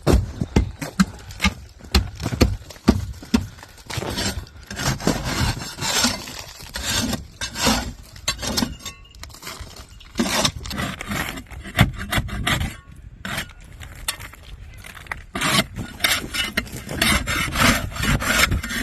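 An ice pick chipping and scraping at a thick crust of ice built up over freezing rain: repeated sharp knocks mixed with gritty scraping, as the iced-over door is worked free.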